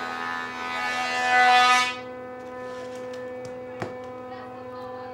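Electric power tool motor in a woodshop running with a steady high whine. It is louder and hissier for the first two seconds, then settles to a quieter even whine. A sharp click comes about four seconds in.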